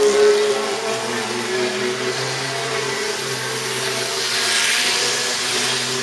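Electric model trains running on the layout's track: a steady motor hum with wheels clicking and rumbling on the rails. About four seconds in, a rush of wheel noise swells as a train passes close by.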